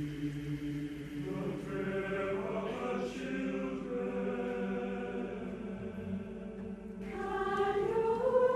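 A choir singing slow, long held chords, swelling louder near the end.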